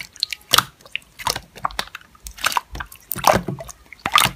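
Slime being squished and pressed by hand, giving irregular wet squelches and sticky clicks.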